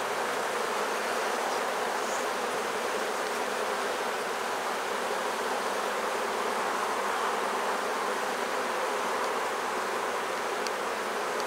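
Steady, dense buzzing of a large honey bee colony around an opened hive, a very populous colony with many bees in the air.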